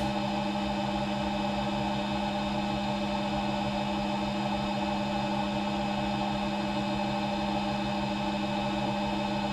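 CNC machining centre running, a steady hum of several constant tones with no change in speed.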